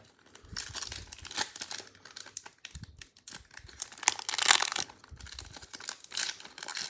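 Foil wrapper of a Panini Player of the Day basketball card pack crinkling and tearing as it is pulled open by hand, in irregular crackles that are loudest about four seconds in.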